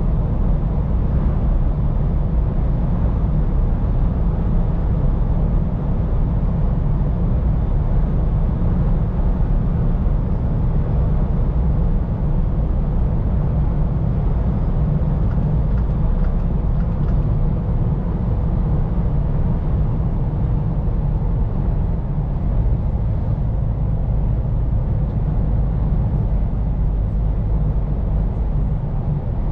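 Scania P410 truck on the move, heard from inside the cab: its engine running and road noise make a steady low rumble.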